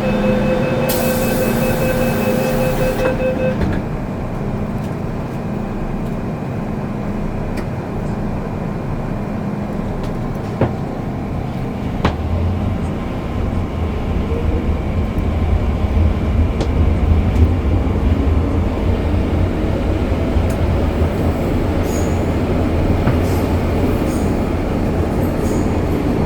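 On board an MTR Kwun Tong Line M-Train: a beeping tone with a burst of hiss for the first few seconds. Then the train runs, its low rumble growing louder about twelve seconds in, with a couple of sharp clicks just before.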